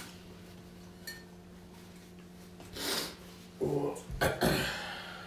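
A person burps about four seconds in, after drinking carbonated Ramune soda. A short breathy puff of air comes about a second before.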